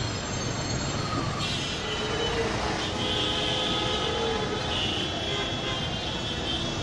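Street ambience: a steady din of passing traffic, with vehicle horns sounding about three seconds in and again later.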